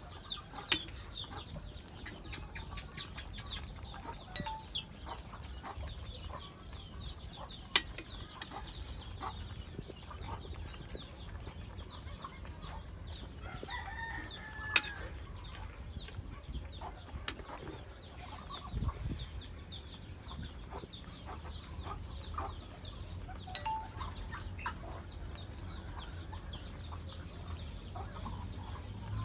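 Free-ranging chickens clucking, with many short high chirps running throughout. A few sharp single clinks stand out, the loudest about fifteen seconds in, from a metal ladle striking the soup bowl.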